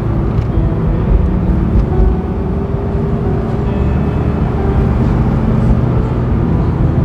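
Honda S2000's 2.2 L four-cylinder F22C1 engine running at a steady cruise, its low drone mixed with road and tyre noise.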